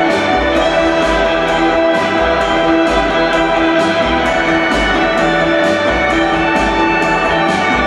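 Electronic music played live on synthesizers: sustained chords over a pulsing bass, with a light tick about twice a second.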